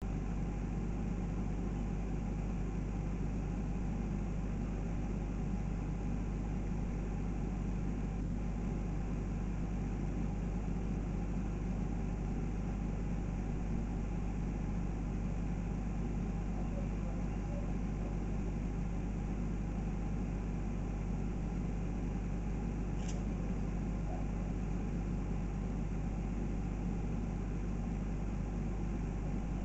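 Steady low mechanical hum with a faint even hiss, unchanging throughout. There is a faint click about eight seconds in and a brief high-pitched tick about 23 seconds in.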